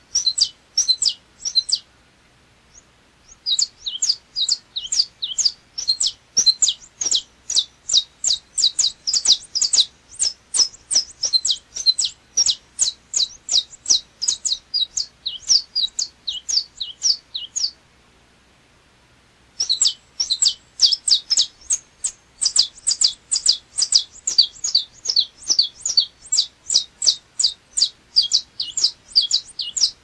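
Saffron finch (canário-da-terra) singing: long runs of sharp, high chirps repeated about four or five times a second, breaking off briefly about two seconds in and again for about two seconds a little past the middle.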